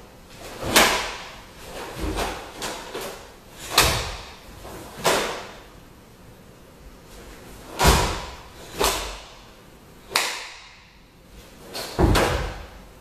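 Sharp snaps of a cotton karate gi with fast punches and blocks, mixed with bare feet stamping on a wooden dojo floor during a kata. About ten separate strikes, several with a low thud from the feet.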